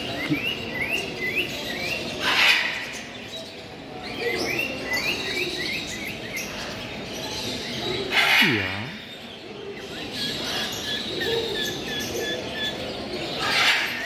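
Caged budgerigars and cockatiels chirping and calling. There are quick runs of short chirps, a short note repeated several times near the end, and three louder calls spread through.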